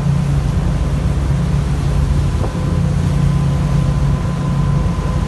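Boat engine running steadily, a constant low drone with a faint steady whine above it.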